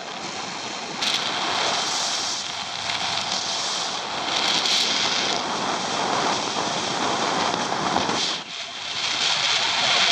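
Airflow rushing over an action camera's microphone on a hang glider in flight: a steady wind hiss that swells and eases, dipping briefly about eight seconds in.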